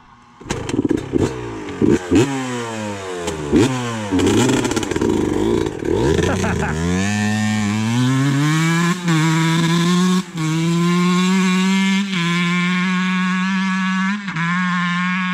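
Dirt bike engine ridden hard: revving up and down in quick throttle bursts, then holding a steady high-revving note broken by a few brief dips.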